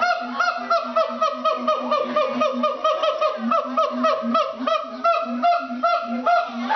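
Siamang calling: a fast, even series of short arching hoots, about three a second, each paired with a low boom resonated by its throat sac.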